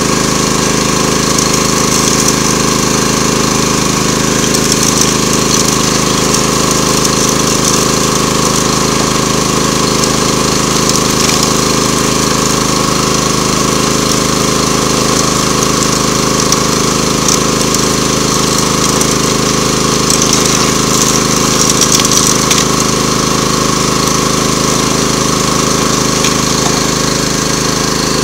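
Small gasoline engine driving a gold-prospecting water pump, running steadily at a constant speed.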